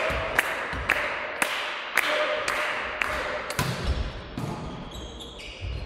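A volleyball bounced on a wooden sports-hall floor about twice a second, each bounce echoing through the hall. The bouncing stops about three and a half seconds in, and a few short high squeaks follow near the end.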